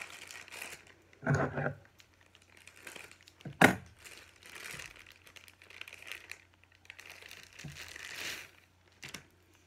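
A plastic wrapper crinkling and rustling as it is peeled off a Barbie Color Reveal doll, with one sharp snap about three and a half seconds in.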